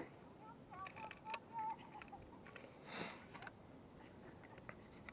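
Soft clicks and taps of a medium format film insert being handled and turned over, with a brief rustle about three seconds in.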